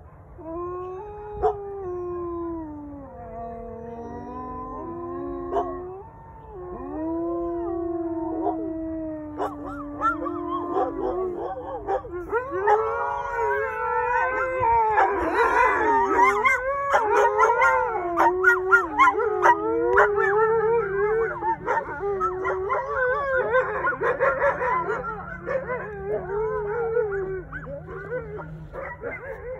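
Canines howling: wolf dogs and a husky in a howling exchange with coyotes. For about the first ten seconds one or two long, wavering howls slide up and down in pitch. Then many voices join in a dense chorus of overlapping howls and yips.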